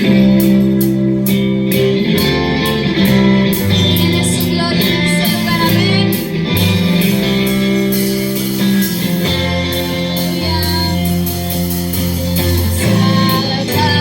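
Worship music: guitar and bass playing steady held chords, with singing.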